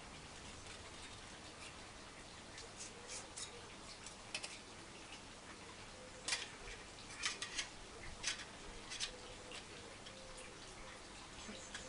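Small clicks and light knocks of camping gear being handled and unpacked, scattered at first and thickest between about six and nine seconds in.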